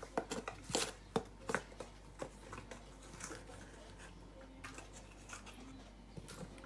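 Light clicks and taps of kitchen utensils and containers being handled, a quick cluster in the first two seconds or so, then only now and then.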